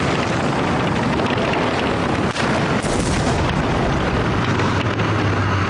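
Combat noise around a tank on the move: a dense, steady din of engine and gunfire, with a sharp crack a little over two seconds in and a blast about three seconds in, and a low engine drone near the end.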